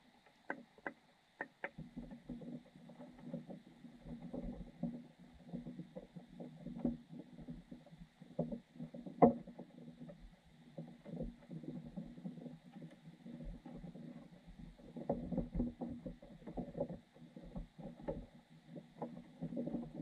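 Muffled underwater sound of a creek heard through a submerged GoPro housing: a low water rumble with irregular small knocks and taps.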